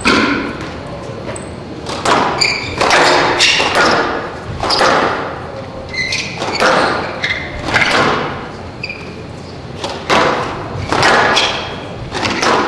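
Squash rally: the ball struck by racquets and smacking the front and glass walls, about one or two sharp hits a second, each ringing in the court's echo, with short squeaks from players' shoes on the court floor between hits.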